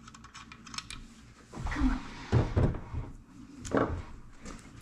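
Clicks and knocks of a screwdriver and small metal parts being handled on a wooden table during assembly, with a few louder knocks about two to three seconds in and one more near the end.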